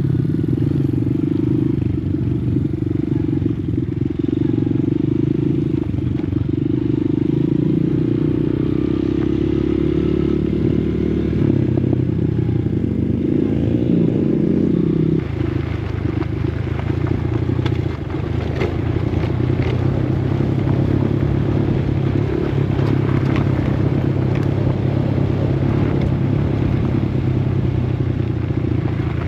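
Dirt bike engine running under way, its pitch wavering and then dropping to a lower note about halfway through.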